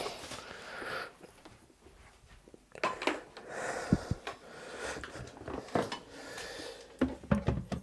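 Handling noise of a plastic bidet seat being picked up and moved: a scattering of light knocks and clicks with soft rustling between, busier near the end.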